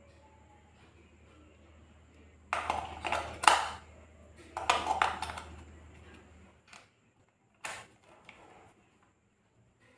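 AA batteries clicking and rattling into the plastic battery compartment of a toy RC car's handheld transmitter, in two bursts, then a few single sharp clicks as the battery cover goes back on.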